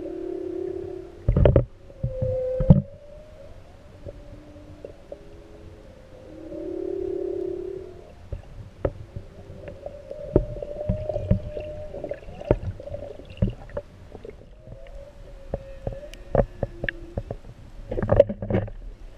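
Humpback whale song heard through the water: long low moans and higher wavering tones, some held for a second or two. Two loud knocks come about a second and a half and nearly three seconds in, and sharp clicks and knocks are scattered through the second half.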